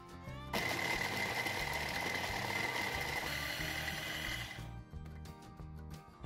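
Electric hand-blender chopper motor running for about four seconds, its blade grinding raw pumpkin chunks into crumbs, with a steady high whine over the motor noise. It starts about half a second in and stops suddenly, over background music.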